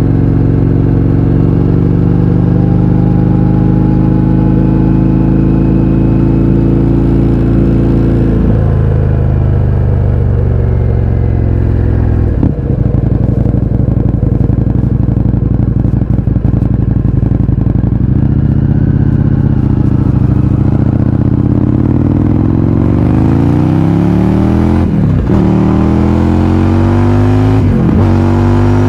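Indian FTR 1200's V-twin through an Akrapovič exhaust with the baffles removed, at speed under way. The engine pulls up steadily, eases off, holds a steadier pace, then near the end revs climb hard through two quick upshifts.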